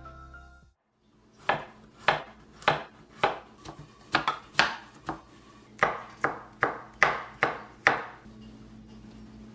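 Santoku kitchen knife cutting carrot and cucumber into thin strips on a wooden cutting board: a steady run of sharp knocks, about two a second, that stops about eight seconds in. Piano music fades out in the first second.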